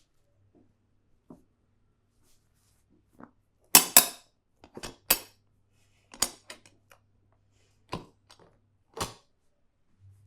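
A series of sharp percussive snaps from a barber's head-and-neck massage: a loud double snap about four seconds in, then smaller snaps every second or so.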